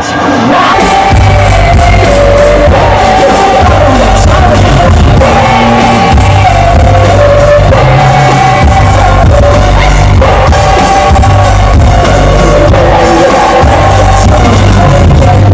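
Loud live hip-hop music over a concert PA in a large hall: a male voice singing and rapping over a heavy, repeating bass beat that comes in about a second in.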